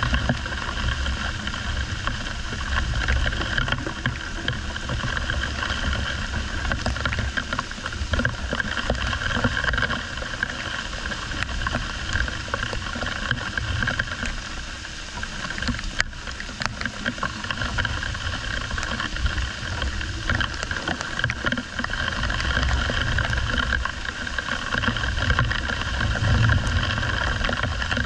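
Steady rain during a thunderstorm, with low thunder rumbling that swells at the start and again near the end.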